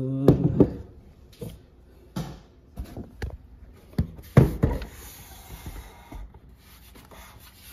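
Irregular knocks and clicks, about a dozen, from stereo equipment being handled and its controls worked, loudest in two clusters near the start and about halfway through.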